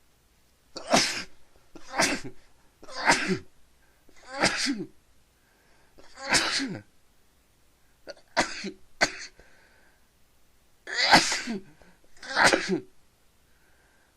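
A man sneezing over and over, about nine sneezes one to two seconds apart, two of them in quick succession. It is a sneezing fit set off by pepper in his nose.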